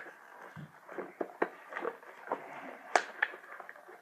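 Nerf blaster packaging being worked open: scattered clicks, crinkles and small snaps, the sharpest about three seconds in.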